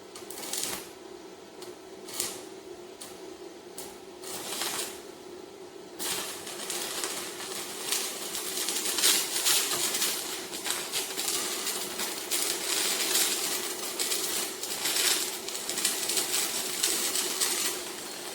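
Stick-welding arc from a 6013 electrode on a MIGVAN M140 inverter welder: three short crackles as the rod is struck and breaks off, then about six seconds in the arc holds and crackles continuously for about twelve seconds. A steady low hum runs underneath.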